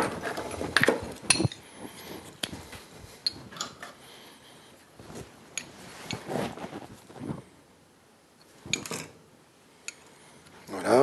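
Copper tube and copper pipe fittings being handled, giving scattered sharp metallic clicks and clinks with short rubbing and handling noises in between.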